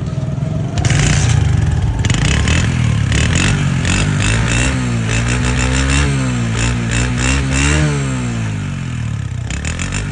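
Honda CD 70's single-cylinder four-stroke engine running through its exhaust silencer and revved up and down about four times, settling back toward idle near the end. The bike has been freshly tuned and had its torn air filter replaced.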